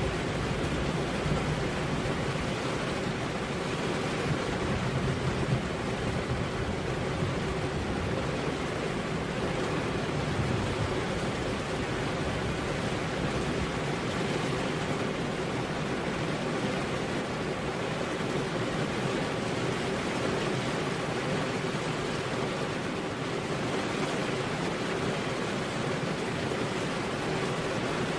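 Heavy rain falling steadily on a road: a dense, even hiss with no thunder, and a low rumble underneath through roughly the first ten seconds.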